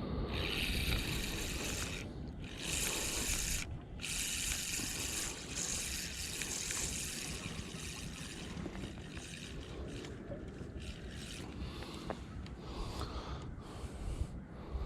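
Steady outdoor noise of wind rumbling on the microphone and water from the fast-running tide, with some rubbing and scraping. The high hiss drops out briefly twice, about two and four seconds in.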